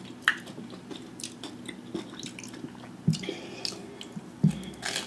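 Close-miked eating sounds of a Flamin' Hot Cheeto-breaded fried pickle: scattered crunchy chews and wet mouth smacks, with a bite into a queso-dipped piece near the end.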